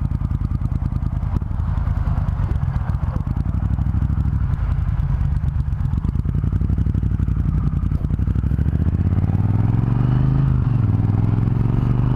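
Triumph Thunderbird Storm's big parallel-twin engine running as the motorcycle rides off, its note climbing in the last few seconds as it accelerates, dipping briefly once before rising again.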